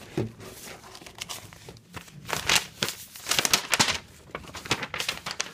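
A thin plastic bag crinkling and rustling as a hand rummages inside it, in irregular crackles that are busiest and loudest about two to four seconds in.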